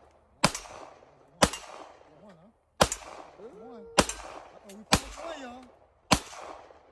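Pistol fired six times in steady succession, about a second apart, each shot a sharp crack with a short echoing tail.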